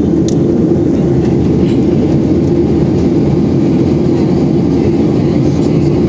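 Steady cabin noise of a Boeing 737-800 airliner in flight: an even, loud rumble of engines and airflow, with one brief click about a third of a second in.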